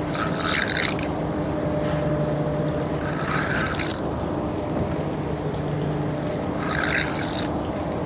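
River water sloshing and splashing close by in three short bursts, each under a second, over a steady low hum.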